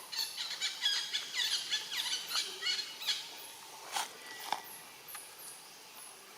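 Monkeys squealing: a rapid string of high, shrill, overlapping calls for about three seconds, then two sharp squeaks about four seconds in.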